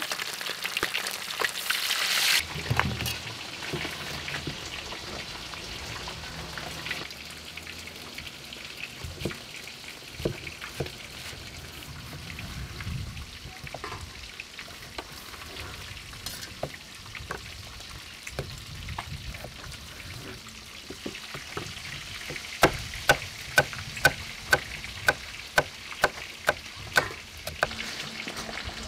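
Fish deep-frying in a wok of hot oil, sizzling loudly for the first two seconds or so before it cuts off. Then a knife cuts pineapple on a wooden chopping board: scattered cuts, and near the end a run of about a dozen quick, even chops.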